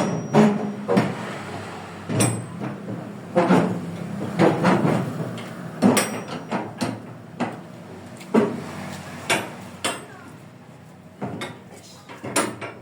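A series of irregular knocks and bangs, about one or two a second, some with a short ringing after them, like hammering or heavy pieces being handled, over a faint steady low hum.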